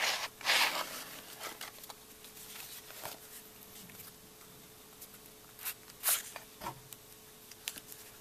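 Pocket Adding Machine, a small metal slide adder, being slid out of its sleeve and handled. There is a short scraping rub about half a second in, then a few brief scrapes and light handling knocks, over a faint steady hum.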